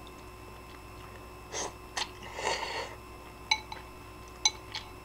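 Eating ramen noodle soup from a bowl with chopsticks: a short slurp about halfway through, with soft mouth and chewing noises. Several light clicks near the end, typical of chopsticks tapping the bowl.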